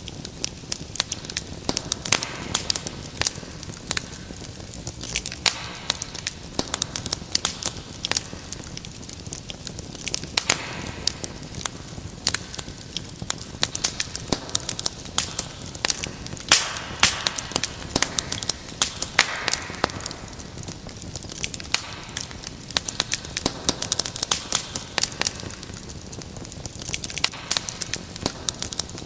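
Wood fire crackling in a fireplace: a dense, irregular run of sharp pops and snaps over a steady low hiss.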